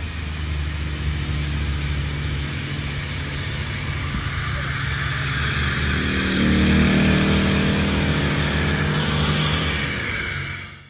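Vehicle engine running with a steady low hum over a continuous hiss. It grows louder from about six seconds in, then cuts off abruptly at the end.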